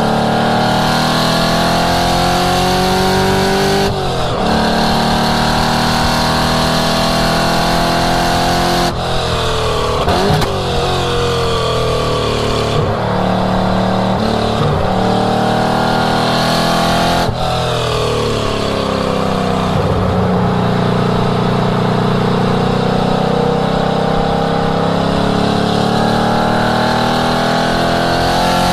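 1967 Ford Mustang's engine running hard on a race track, its note climbing under acceleration, dropping sharply about four, nine and seventeen seconds in, then climbing again.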